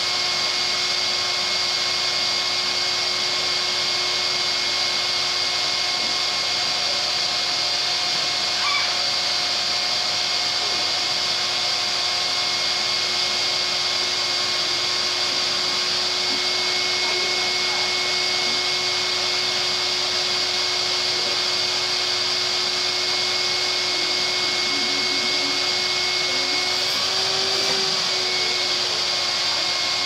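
Vacuum cleaner running steadily: a constant motor whine over a rush of air drawn in through the hose.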